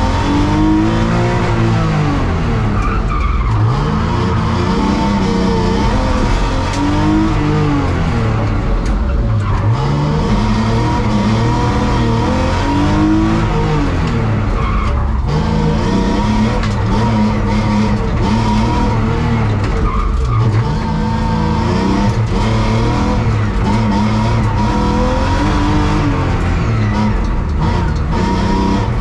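BMW 328i's straight-six engine, heard from inside the cabin, revving up and dropping back again and again through a slalom, its pitch rising and falling every few seconds, with tyre squeal and skidding over it.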